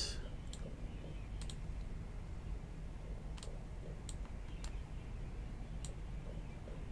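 A handful of separate, irregularly spaced clicks from computer keyboard keys being pressed, two of them in quick succession about a second and a half in, over a faint low room hum.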